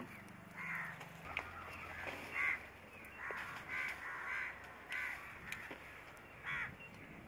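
Crows cawing repeatedly, a string of short harsh calls about once or twice a second.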